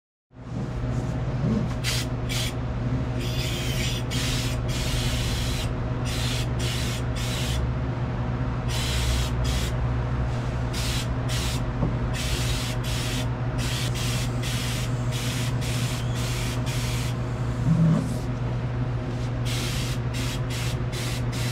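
Air-powered HVLP spray gun hissing in many short trigger pulls and a few longer ones while spraying primer, over a steady low hum. A brief low bump near the end.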